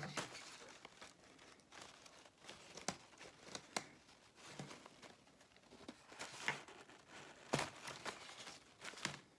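Artificial roses rustling and crinkling as the bunch is handled, with a few sharp snips of scissors cutting off the stems.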